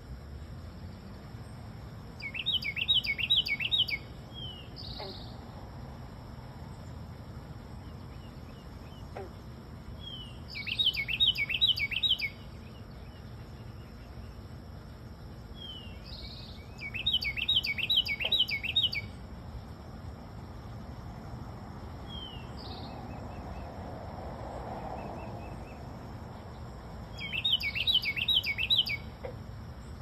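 A small songbird singing: a quick run of about six or seven repeated rising-and-falling notes lasting about a second and a half, given four times several seconds apart, with single short call notes between the phrases.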